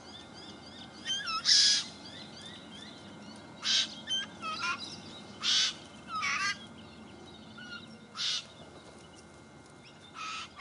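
A party of white-winged choughs calling. Short harsh rasping calls come about every two seconds, five in all, with falling whistled notes and small chirps between them.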